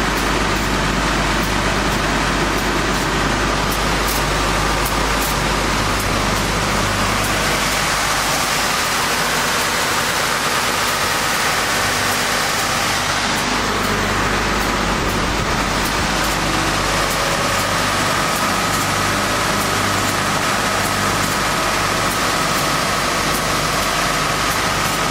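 Wood-core profile sanding machine running its automatic program: a steady, loud machine noise with a low hum, and a faint high whine that comes in about ten seconds in.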